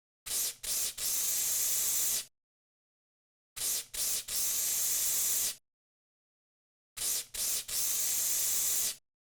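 Aerosol insecticide can with a narrow straw nozzle spraying three times: each time two quick short puffs, then a held hiss of about a second and a half.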